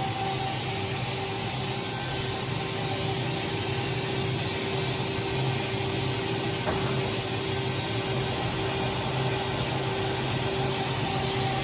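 OKK HM-6300S CNC horizontal machining center running with its CAT 50 spindle turning at 7,000 RPM, warmed up: a steady machine hum with a few constant tones over an even hiss.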